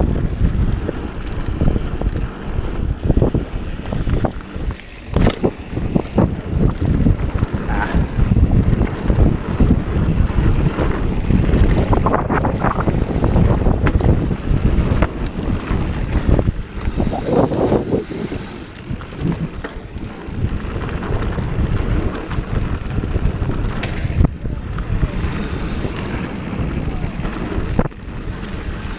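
Wind buffeting the camera microphone over the rumble of a Santa Cruz Hightower 27+ mountain bike descending hard-packed dirt singletrack, with scattered knocks as the bike rattles over bumps.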